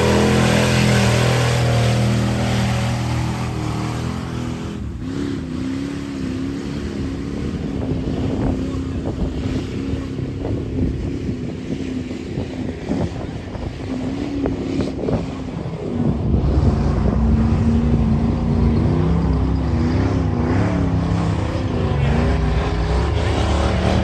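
Mega truck engine running hard under load through a mud pit, easing off for several seconds in the middle and loud again from about two-thirds of the way through.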